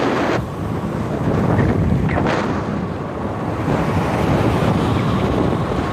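Wind rushing over the microphone of a moving car, with the car's road noise underneath.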